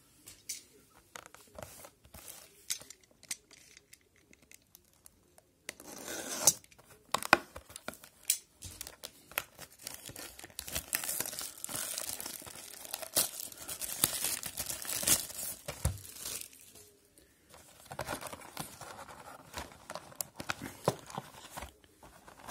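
A sealed cardboard trading-card box being torn open by hand: quiet handling at first, then repeated ripping and crinkling of the wrapping and cardboard from about six seconds in, with a short pause near the end before more tearing.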